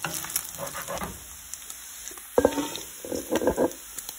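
Wooden spatula stirring and scraping browned crumbled sausage in a cast-iron skillet, with a light sizzle. About two and a half seconds in comes a sharp knock, then a short run of knocks and scrapes as the cooked sausage is scraped into a bowl.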